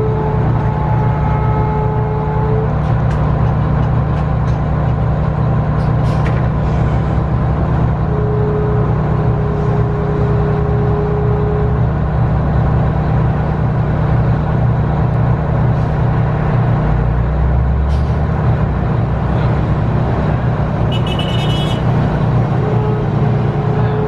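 Detroit Diesel 6V92TA two-stroke V6 diesel of a 1990 Orion I bus running steadily, heard from inside the cabin near the rear engine, with a thin steady tone that comes and goes twice. A brief high-pitched sound cuts in near the end.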